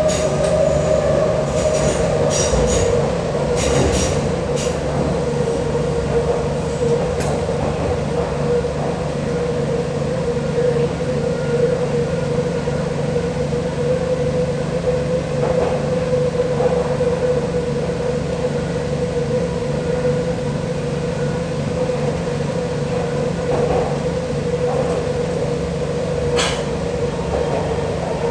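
MTR C-train metro car running through a tunnel, heard from inside the cabin: a steady rumble with a steady whine. A few sharp clicks come a few seconds in, and one more near the end.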